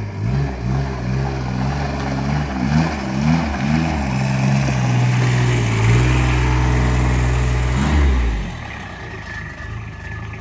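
Bobcat 2300 (Club Car 1500 XRT) utility vehicle's engine running as it drives. The engine speed rises and falls several times, then holds steady, and drops back to a low idle about eight seconds in.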